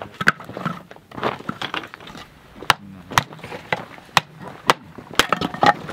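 Hatchet striking an upright piece of firewood to split kindling: sharp wooden knocks, one at the start and then about every half second through the second half.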